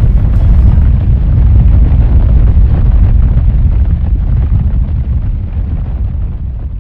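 Deep, loud rumble of a cinematic logo-reveal sound effect, like a drawn-out explosion, slowly fading out over the last couple of seconds.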